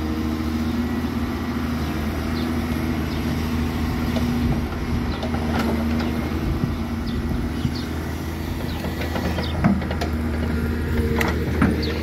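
Backhoe loader's diesel engine running steadily, with a few short knocks and clanks as the bucket works.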